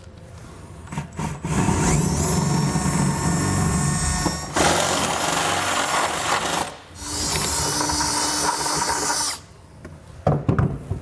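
Cordless drill with a 5/8-inch bit enlarging pilot holes through a pickup's steel bed floor. The motor whines and the bit grinds through the metal in two runs, with a short break about seven seconds in, and stops about nine seconds in. A couple of light knocks come near the end.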